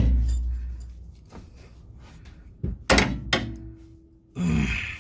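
Hammer knocks against a car's rear coil spring while a rubber spring booster is driven in between the coils: one knock right at the start, then three more about three seconds in, the last leaving a short ring.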